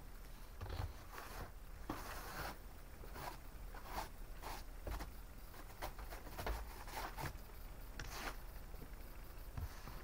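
Stiff car snow brush scraping frozen snow and ice off a car's side window in repeated short, rasping strokes.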